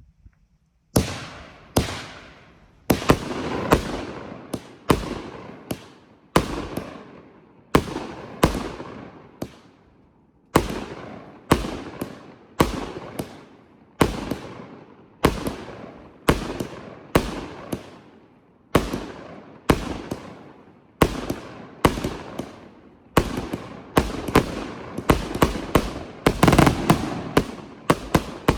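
Consumer firework cake firing a long string of shots: sharp bangs at about one a second, each followed by a fading rumble. The shots come thicker and loudest near the end.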